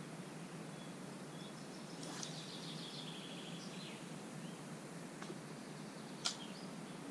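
A fishing rod cast: a swish about two seconds in, then line whirring off the reel spool in rapid pulses that slow and drop in pitch for about two seconds, and a sharp click near the end as the reel's bail arm is closed.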